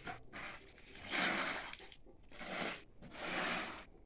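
Push broom scraping across a wet stone-and-cement floor in three strokes, about a second in, about two and a half seconds in, and just after three seconds.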